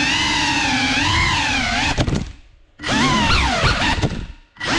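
GEPRC Cinelog 35 cinewhoop's motors and ducted props whining, the pitch swinging up and down with the throttle. The whine drops out briefly twice, about two seconds in and just before the end, as the throttle is cut, then climbs back in quick jabs.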